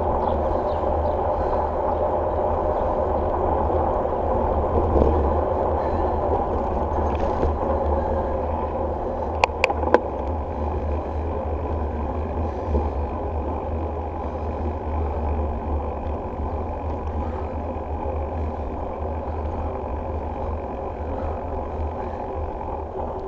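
Wind and tyre noise from a bicycle rolling along an asphalt road: a steady, low rumble on the camera's microphone. A few sharp clicks come close together about ten seconds in.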